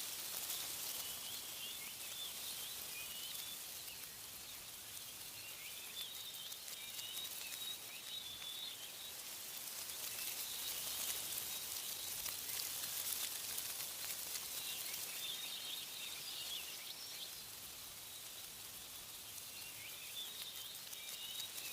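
Wind rustling through tree leaves as a steady high hiss, with small birds chirping in short bouts every few seconds.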